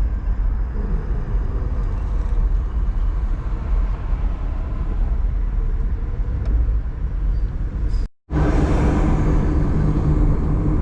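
Car driving on the road: a steady low rumble of engine and tyre noise. It cuts out for a split second about eight seconds in, then resumes with a steadier hum.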